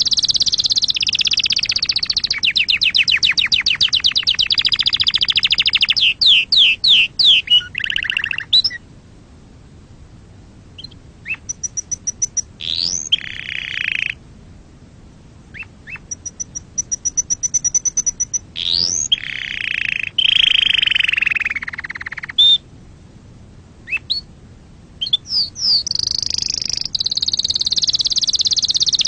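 Domestic canary singing: long, fast trills of rapidly repeated notes mixed with sweeping whistles, in phrases broken by several short pauses.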